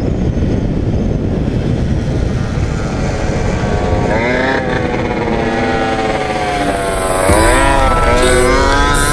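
Several small two-stroke scooter engines running and revving, among them the camera rider's 2005 Yamaha Aerox with a DR70 cylinder kit and Leovince TT exhaust. From about four seconds in their pitch climbs and drops repeatedly as they accelerate and ease off, over a steady rumble of wind on the microphone.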